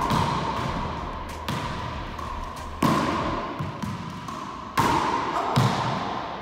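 A racquetball being struck and hitting the court walls, four sharp hits, each ringing out with a long echo in the enclosed court.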